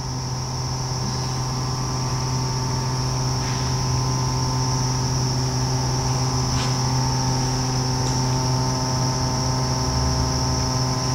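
Steady electrical hum with a high-pitched whine above it, with a couple of faint ticks.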